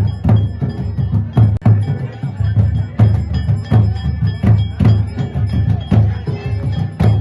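Drumming with a steady beat and ringing bells: rhythmic percussion music.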